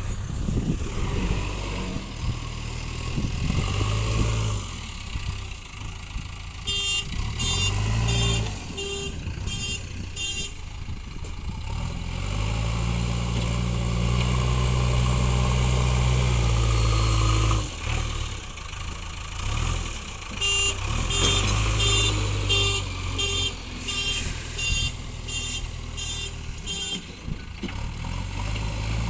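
JCB backhoe loader's diesel engine working, its note rising and falling with load, with one long steady hard pull in the middle. Its reversing alarm beeps about twice a second in two runs, a few seconds in and again through much of the second half.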